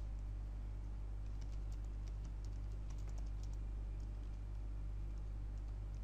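Typing on a computer keyboard: a run of light, quick key clicks, mostly in the first half, over a steady low electrical hum.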